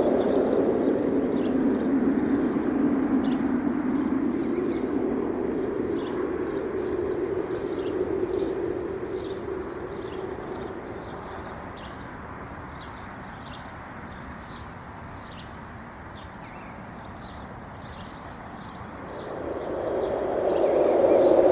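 Wind gusting, loud at first, dying down about halfway, then rising again near the end, with small birds chirping in many short high calls throughout.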